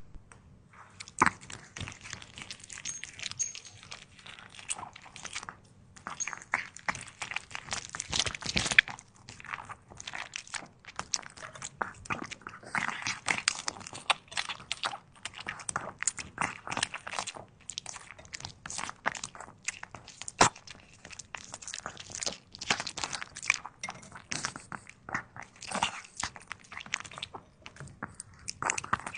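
Puppy chewing raw vegetables: a long run of irregular, crisp crunches with a few short pauses.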